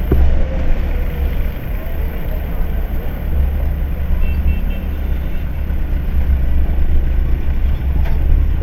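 Street traffic heard from a moving motorbike: a steady low rumble of the bike and wind on the microphone, with a few faint short beeps a little past the middle.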